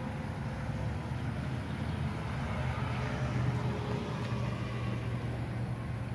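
Forklift engine running steadily as the forklift drives forward carrying a load, a low drone that grows a little louder about halfway through.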